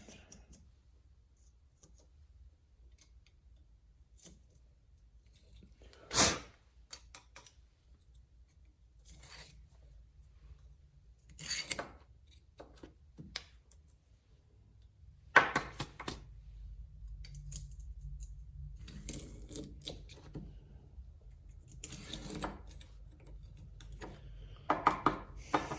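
Intermittent short scrapes and small metal clicks of a bar-groove cleaner and scraper working grit out of a chainsaw guide bar, with a sharper knock about six seconds in.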